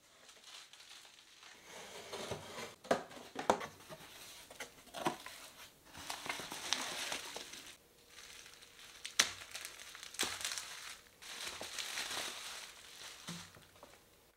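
Packaging being unwrapped by hand: crinkling bubble wrap and plastic, rustling cardboard, with several sharp clicks and snaps along the way.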